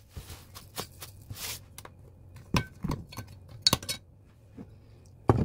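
A metal spoon clinking against a glass measuring cup as seasonings are spooned in, several sharp clinks a second or so apart. A soft hiss runs through the first second and a half.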